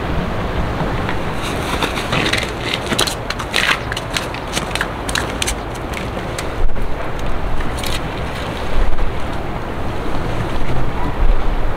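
Strong wind buffeting the microphone as a steady low rumble. From about two to eight seconds in comes a quick run of sharp crackles and clicks.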